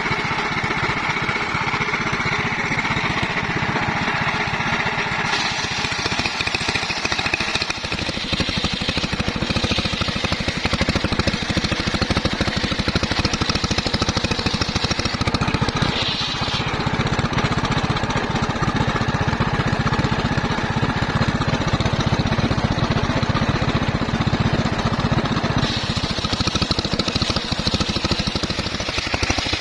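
Homemade bandsaw running steadily under power while sawing teak wood, with a constant fast pulsing machine sound and changes in the higher sound a few times along the way.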